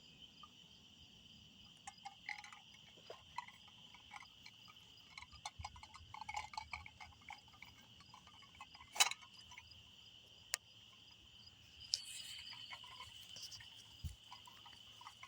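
Faint night chorus of insects and frogs: a steady high-pitched drone that swells a little near the end. Scattered light rustles and clicks sound over it, with one sharper click about halfway.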